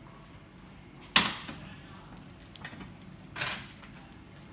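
Kitchenware being set down: a sharp clunk about a second in, and a softer knock about two seconds later.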